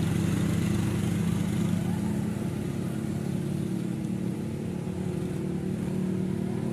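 Small motorcycle engine running at low speed as the bike rides ahead along a dirt path, a steady hum that slowly fades as it pulls away.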